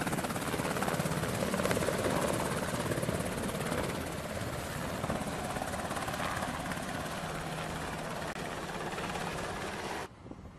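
Navy MH-60 Seahawk helicopter running close by, a steady rapid rotor chop over turbine noise, easing slightly partway through and cutting off abruptly near the end.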